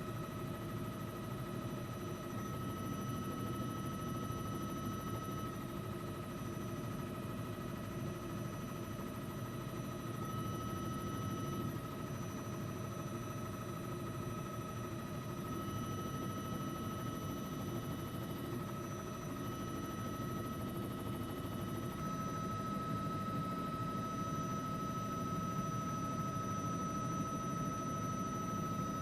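Helicopter in flight: a steady drone of rotor and engine with constant high whining tones over it.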